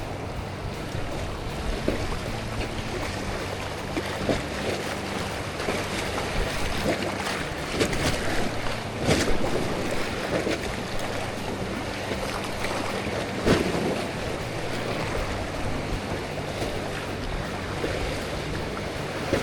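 River water rushing and splashing around a raft, with wind buffeting the microphone. A few sharper splashes stand out, the loudest about thirteen seconds in.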